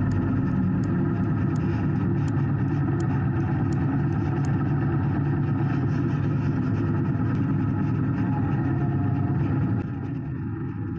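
Kawasaki W800's air-cooled parallel-twin engine running steadily under way, its level dropping a little near the end.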